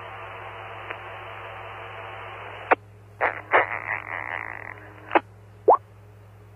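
FM two-way radio audio from a 2-metre amateur repeater: an open carrier with steady hiss and a faint hum, which cuts off with a sharp click after nearly three seconds. It is followed by a few short bursts of noise and clicks as stations key up and unkey, one of them lasting about a second.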